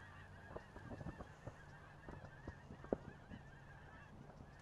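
A distant flock of geese honking continuously, many overlapping calls, with a few faint clicks.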